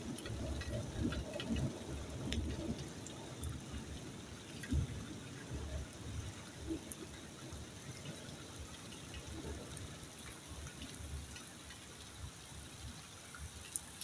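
Steady rain falling and splashing, with scattered sharp taps of drops close by.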